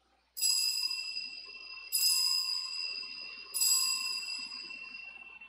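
Altar bell rung three times at the elevation of the consecrated host, each stroke ringing out with clear steady tones and fading before the next; the three rings mark the moment the host is shown to the people at the consecration.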